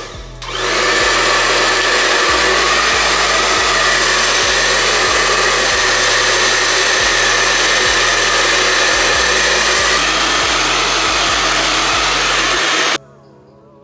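A Frontal Pro handheld hair dryer blowing steadily, used to dry lace-wig glue on the hairline until it turns clear. It comes on about half a second in and cuts off sharply a second before the end.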